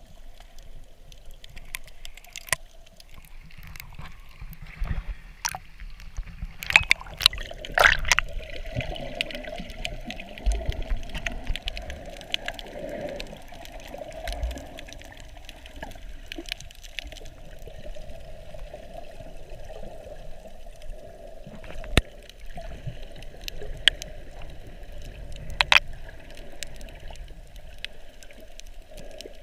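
Muffled water sounds recorded underwater: sloshing and gurgling around the camera, with scattered sharp clicks and knocks, the loudest cluster about a quarter of the way in.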